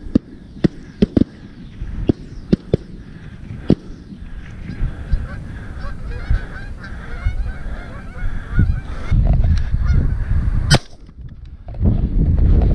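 A flock of Canada geese honking as it flies in, many overlapping calls, heaviest in the middle of the stretch. Several sharp clicks come early on, and wind buffets the microphone near the end.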